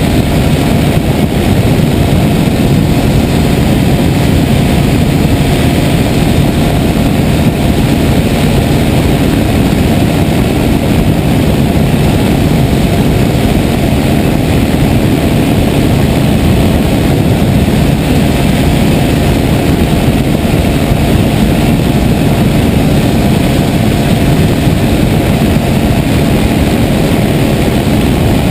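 Mosquito NRG powered hang-glider harness motor and propeller running steadily in flight.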